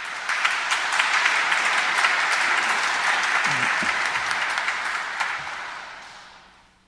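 A congregation applauding: dense, steady clapping that dies away over the last second or so.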